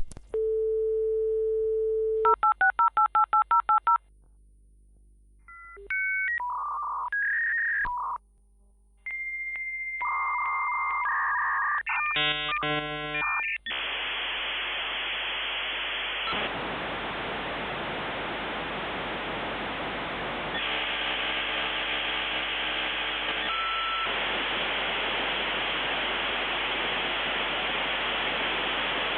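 56k dial-up modem connecting. A steady dial tone is followed by a quick run of about a dozen touch-tone digits. After a short pause comes the handshake: a series of beeps and tones at changing pitches. About halfway through, this gives way to loud hissing static that shifts in character a few times and runs on to the end.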